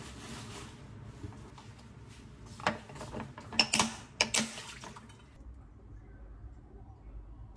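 Thick, wet seasoning sauce sliding out of a glass measuring cup into a glass food container, then the container's plastic lid set on and its locking clips snapped shut: a quick series of sharp clicks about three to four and a half seconds in.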